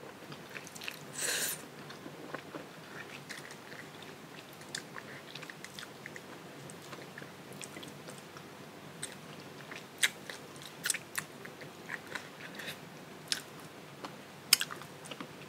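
Close-up chewing and gnawing on stewed chicken feet, with sharp crunchy clicks that come thickest in the last few seconds.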